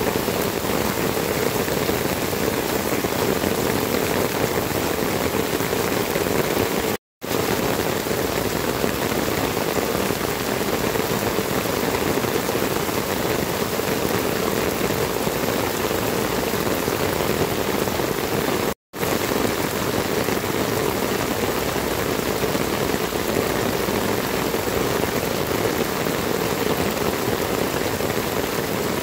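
Heavy tropical downpour: a steady, dense rush of rain falling on roofs and the ground. The sound cuts out for a split second twice, about 7 and 19 seconds in.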